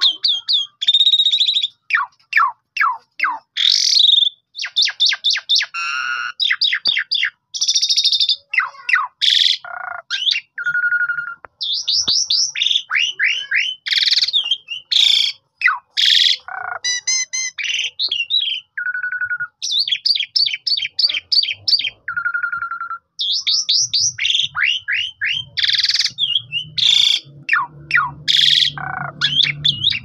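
Javan pied starling (jalak suren) singing full and non-stop, mixing fast runs of repeated notes, rapid chatter, sharp clicks and short level whistles. A low hum joins in during the last few seconds.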